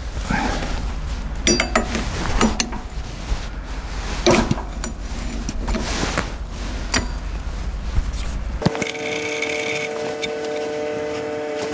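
Scattered metallic clinks and knocks of a wrench and engine parts being handled over a steady low rumble; about nine seconds in this cuts off abruptly into a steady held musical chord.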